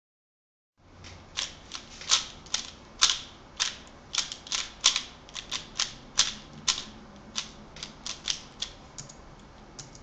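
A 3x3 Rubik's speed cube being scrambled by hand: a quick, irregular run of sharp plastic clicks as the faces are turned. It starts about a second in and stops just before the end.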